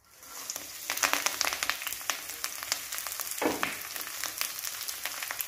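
Fresh curry leaves dropped into hot oil in an aluminium kadai, sizzling and crackling with many sharp pops as their moisture hits the oil. The sound starts as the leaves go in, with one louder, deeper burst about three and a half seconds in.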